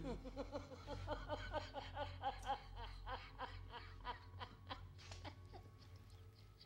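A man laughing hard, a rapid run of ha-ha-ha that tails off after about five seconds, over a low steady hum.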